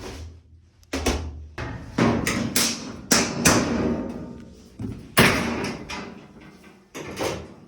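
A washing machine's panel being opened up and handled: a string of sharp knocks and clatters, about a dozen over several seconds.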